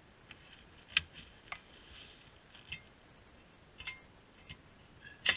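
Irregular sharp metallic clicks and clinks, about eight in all, some with a short ring. The loudest come about a second in and near the end.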